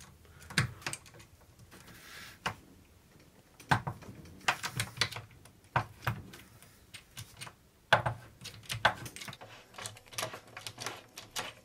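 Screwdriver turning a large screw out of a wooden wheel hub: irregular clusters of sharp clicks and short scrapes of metal on wood, like typing.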